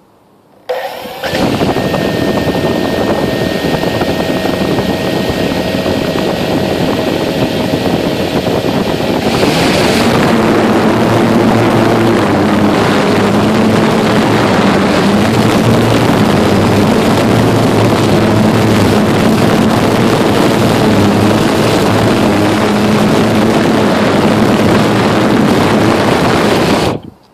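Blade 350 QX quadcopter's four brushless motors and propellers, heard up close from its onboard camera: the motors spin up about a second in and run with a steady whine, grow louder about nine seconds in as it lifts off and flies, and cut off suddenly near the end once it has landed.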